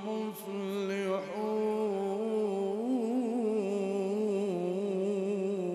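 A man reciting the Quran in the slow melodic mujawwad style, drawing out long sung notes. He breaks off briefly about a second in, then holds one long ornamented note with a wavering trill in the middle, stopping near the end.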